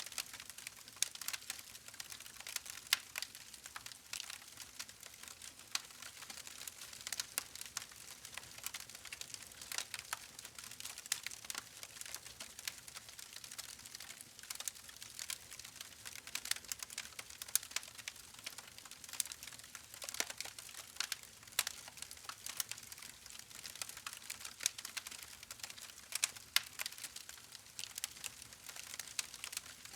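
Campfire crackling: many small, irregular snaps and pops over a soft, steady hiss.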